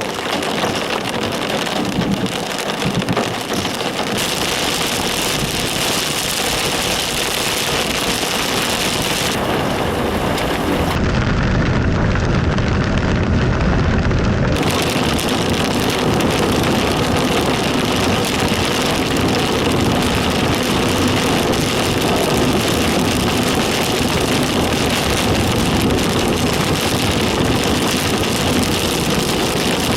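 Heavy thunderstorm rain falling, a loud steady noise, with a deeper rumble for a few seconds about eleven seconds in.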